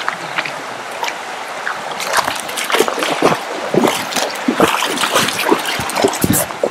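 River water rushing and splashing around an inflatable boat. Irregular splashes and sloshes come more and more often from about two seconds in.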